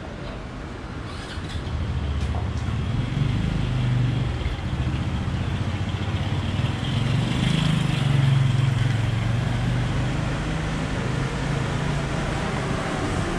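An engine running close by, its low hum building over the first few seconds, loudest near the middle, then easing off slowly.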